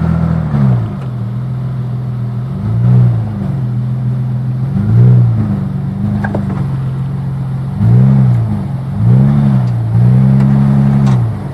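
Nissan Patrol's TB48 straight-six petrol engine running at low revs and blipped up and back down in short bursts, about six times.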